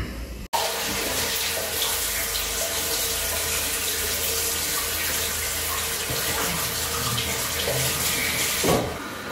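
Mixer tap running into a small ceramic hand basin while water is splashed on the face, a steady rush of water that starts just after the beginning and stops near the end.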